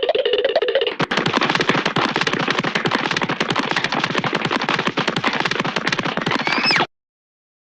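Cartoon sound effect: a brief wavering tone, then a rapid, dense rattle of sharp clicks like machine-gun fire, lasting about six seconds and cutting off suddenly.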